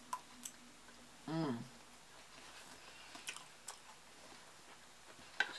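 Quiet close-miked chewing with a few sharp mouth clicks as a forkful of food is eaten, and a short hummed "mm" falling in pitch about a second and a half in.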